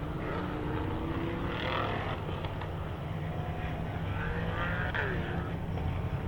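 Racing car engines running at the track, several at once, their pitches rising and falling as they accelerate, shift and pass, over a steady low rumble; one drops sharply in pitch about five seconds in.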